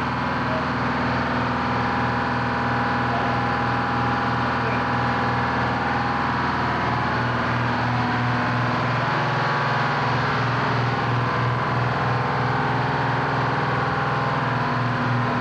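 Engine-room machinery running steadily: a low, pulsing engine hum with several steady higher tones over it.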